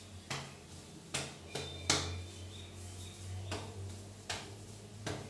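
Fingertips rubbing and scratching through long, thick hair on the scalp, heard as a series of about seven short, sharp scratches, the loudest about two seconds in, over a faint steady hum.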